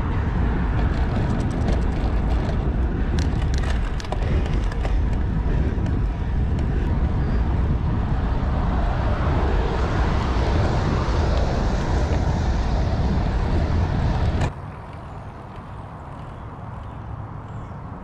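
Wind rushing over the microphone with road noise from a road bike being ridden, as a steady loud rush with a deep rumble and a few light clicks in the first seconds. The rush cuts off suddenly about 14 to 15 seconds in, leaving a quieter steady noise.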